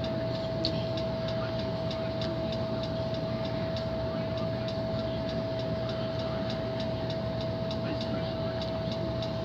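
Steady background hum with a constant mid-pitched whine and faint, regular ticking. It does not change throughout.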